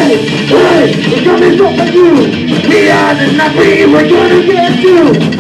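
Live psychobilly band playing loud, an instrumental passage between vocal lines, with upright bass and electric guitar and sliding guitar notes.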